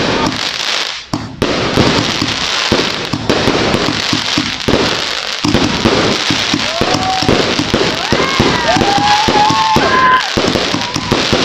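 A 268-shot 'Lucky Party' fireworks cake firing continuously: rapid, dense bangs and crackling with a brief dip about a second in.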